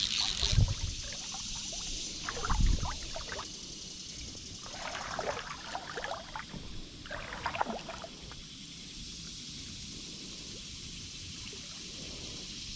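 Water sloshing and splashing in short spells while a hooked longnose gar is fought on a fly rod, with two low thumps in the first three seconds.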